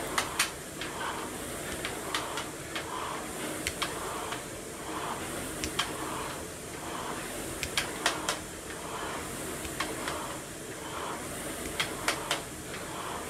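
Air rowing machine worked hard: the fan flywheel whooshes in an even rhythm of surges with each stroke, with sharp clicks from the machine among them.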